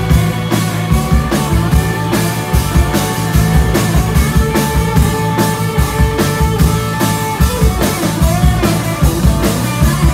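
Live country-rock band playing an instrumental break without vocals: a steady drum-kit beat under strummed acoustic guitar and keyboard.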